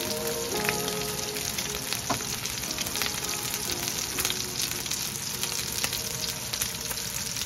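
Slices of meat frying in oil in a pan under a mesh splatter screen: a steady sizzle with scattered sharp pops.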